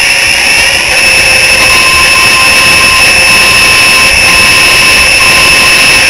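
Opened Maxtor hard drive powered back on, spinning with a loud, steady high-pitched screech over a rushing hiss: the sound of a failing drive with bad bearings and a scratched platter, which the owner takes for dead.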